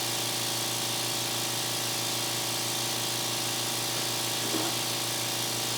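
Harbor Freight electric vacuum pump running steadily with an even hum, drawing vacuum through a quarter-inch tube on a woodworking vacuum clamp.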